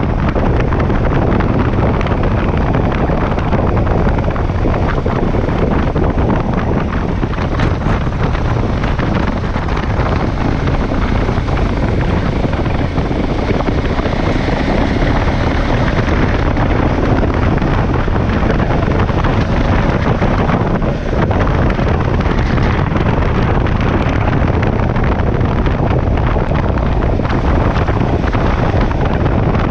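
Steady wind rushing over a motorcycle-mounted camera's microphone while riding, with the KTM 1190 Adventure's V-twin engine running underneath.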